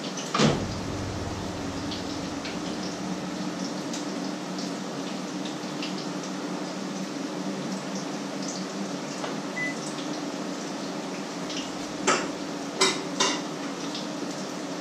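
Food sizzling steadily in a frying pan over a low, steady hum. A loud clatter of kitchenware comes about half a second in, and three quick clinks of metal utensils come near the end.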